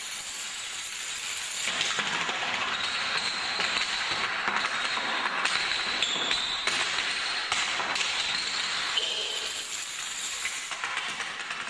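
Wooden craft sticks of a woven stick chain reaction springing apart and clattering onto a wooden floor: a dense run of rapid clicks and clatter that starts about two seconds in and thins out near the end.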